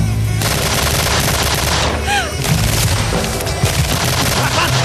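Dense automatic gunfire, many rapid shots with no break, with a brief rising-and-falling whine about two seconds in.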